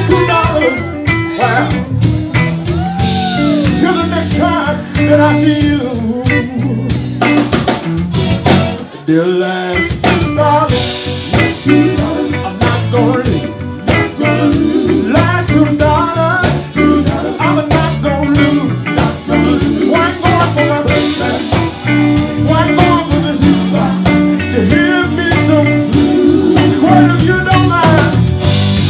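Live band playing: a singer over electric guitar, drum kit and keyboards. The low end drops out briefly about nine seconds in, then the groove comes back in.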